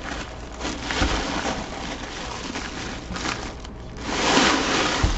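Rustling of a black fabric drawstring helmet bag and crinkling plastic wrap as a full-size football helmet is handled and pulled out by hand. The noise is loudest about four seconds in.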